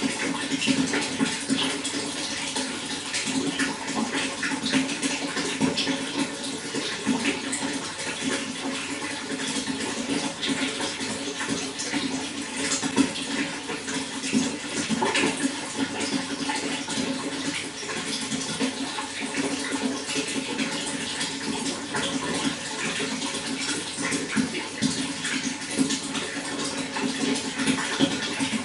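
Running water flowing steadily, with continual small splashes and gurgles.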